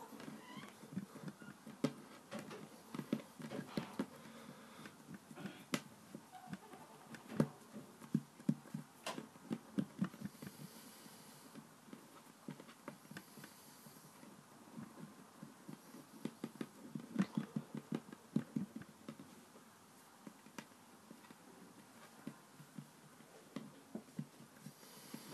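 Hands kneading and pressing play dough flat on a wooden tabletop: soft, irregular thumps and pats, with a few sharper taps.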